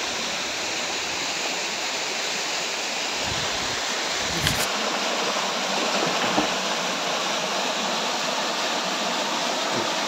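Steady rush of a small waterfall pouring over rock into a pool, with a brief click about four and a half seconds in.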